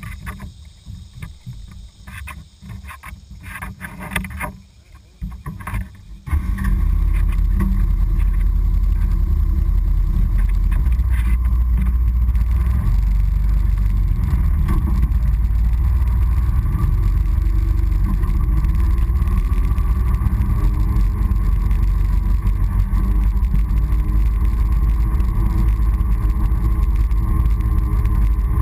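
Honda Foreman four-wheeler running under way, heard from a camera mounted on the ATV itself. The sound is uneven at first. About six seconds in a loud, steady low rumble sets in and holds.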